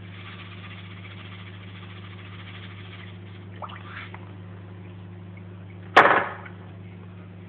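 Aquarium equipment humming steadily, with a hiss of water and air bubbles over the first three seconds and a couple of faint ticks. About six seconds in comes a single sharp knock, the loudest sound.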